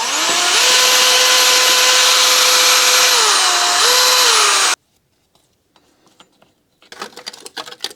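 Power drill spinning up and running at a steady high whine, its pitch dropping briefly a little after three seconds in, rising again, then stopping abruptly about five seconds in. Light clicking and rattling near the end.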